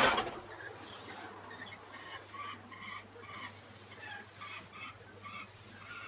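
Feeding birds calling: a quick run of short chirping calls, about three a second. A brief loud rush of noise comes right at the start.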